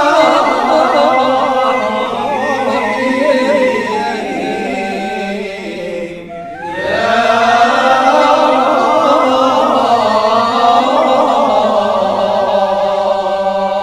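Male voices of a Sufi samā' ensemble chanting a slow, ornamented melody together over a steady held low drone. The chant breaks off briefly about six seconds in, then resumes.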